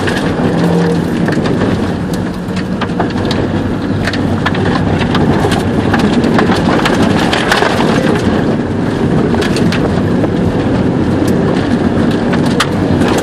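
Škoda Felicia heard from inside the cabin, its engine running hard under load while dirt and stones patter and clatter against the underbody on a rough track.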